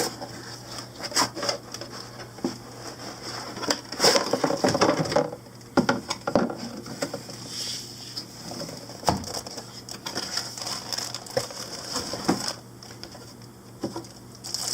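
A new computer power supply being unboxed: cardboard box and packaging handled with a string of taps, scrapes and rustles, loudest about four to five seconds in.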